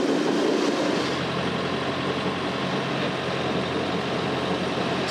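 Steady low hum and rushing noise of a sailboat under way, heard inside its cabin.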